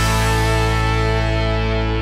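Background music: a guitar chord held steady.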